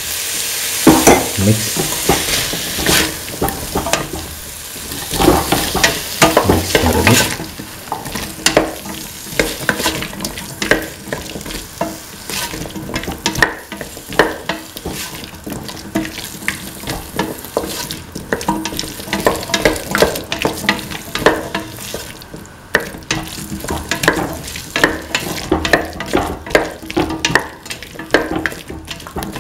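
Spatula stirring and scraping chunks of ash gourd (winter melon) with tomatoes against the bottom of a hot stainless steel pan over a steady frying sizzle. Repeated scrapes and clatters, loudest in the first several seconds.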